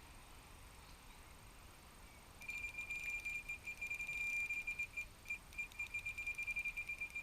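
Nash S5R carp bite alarm sounding a rapid, near-continuous string of high beeps at one pitch, starting a couple of seconds in: a run, with line being pulled from the reel by a taking fish.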